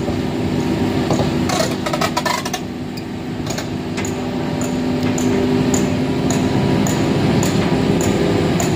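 Hitachi hydraulic excavator's diesel engine running steadily under load while its boom holds up a truck's tilted cab. A quick run of metal knocks comes about two seconds in, then a light, regular clinking about twice a second.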